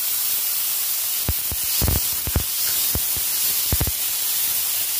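Chopped capsicum and green peas sizzling in oil in a non-stick frying pan, a steady hiss. A series of short knocks about a second in and again near four seconds as the peas are tipped in and stirred with a wooden spatula against the pan.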